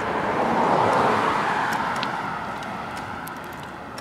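A road vehicle passing by: a swell of tyre and road noise that peaks about a second in and slowly fades away.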